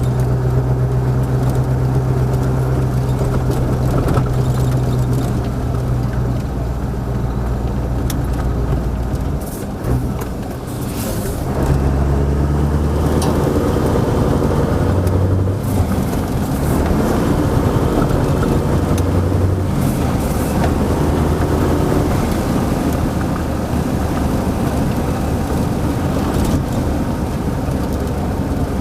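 1989 Mercedes-Benz SK 1748's V8 turbodiesel running steadily, dropping off briefly about ten seconds in, then pulling again at varying revs, with a few brief hisses along the way.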